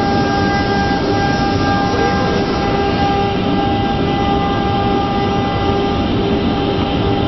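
Multi-head CNC router for door panels running steadily, a constant machine noise with a steady high whine from its spindles.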